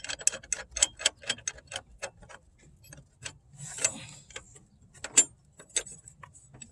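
Hand ratchet wrench clicking in quick, even strokes, about four or five clicks a second, then slowing to scattered single clicks with a short rustle in between.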